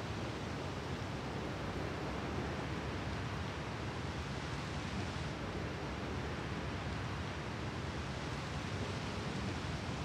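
Steady wash of sea surf along the shore: an even hiss with no separate wave breaks standing out.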